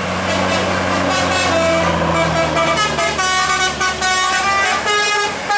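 Tour bus's 'telolet basuri' musical horn playing a quick tune of changing notes, starting about a second and a half in, over the low running of a vehicle engine.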